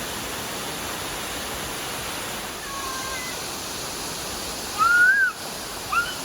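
Steady rush of a 90-foot waterfall. A high-pitched voice, likely a child's, gives a short rising-and-falling call about five seconds in, with fainter calls a couple of seconds earlier.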